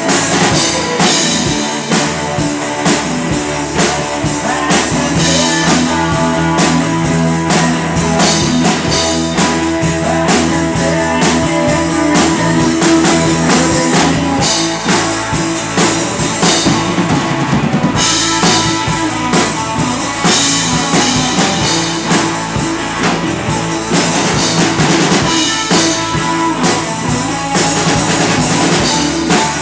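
A rock band playing live: drum kit with snare and bass drum keeping a steady beat under electric guitars and bass. The cymbals drop out briefly about two-thirds of the way through.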